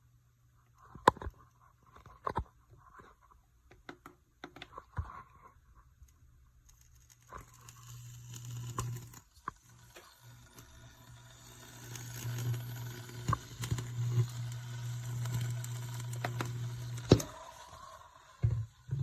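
Fellow Stagg EKG electric gooseneck kettle in use: a few light clicks and knocks, then a steady water sound that builds from about seven seconds in and holds for several seconds. A sharp clack comes near the end.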